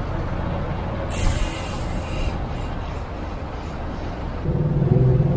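Street traffic: a steady low rumble of road vehicles, with a short hiss about a second in. Near the end a vehicle engine hum grows louder.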